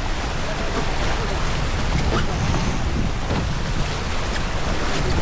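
Wind buffeting the microphone over the steady rush of water along a sailing boat's hull while it is under way.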